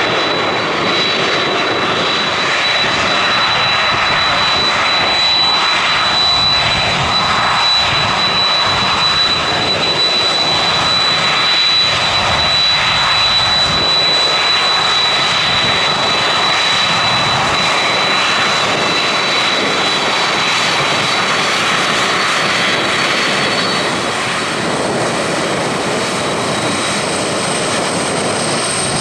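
Boeing 767's jet engines running, a loud steady rush with a high whine held above it. About 24 seconds in, the sound drops slightly and the whine gives way to a higher tone.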